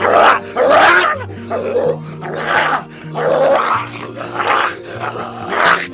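Cartoon dog-and-wolf scuffle: a run of short snarls and growls, about one a second, over background music with held low notes.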